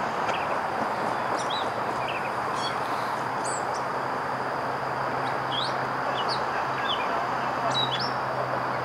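Small birds chirping over and over, in short high calls, over a steady rushing background noise. A low steady hum comes in about a second in and grows stronger near the end.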